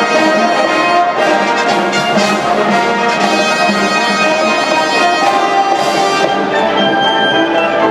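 High school marching band playing, with brass (trumpets and trombones) holding loud sustained chords over drums.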